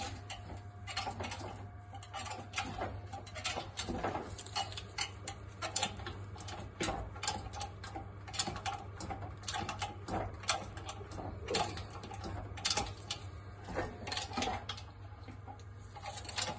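A 20-ton hydraulic shop press being pumped, giving irregular clicks and knocks as its ram pushes down on a seized piston in a Rootes 1600 engine block. A steady low hum runs underneath.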